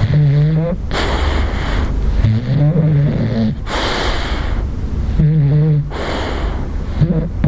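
Bulldog snoring in deep sleep: a pitched, wavering snore alternates with a breathy rush of air, about three breaths in all.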